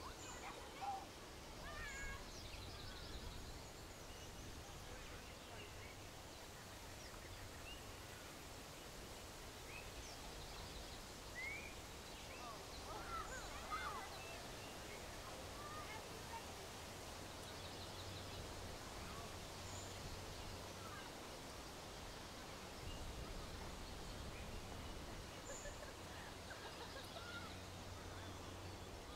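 Quiet natural outdoor ambience: scattered short bird chirps and calls over a soft, steady background rush.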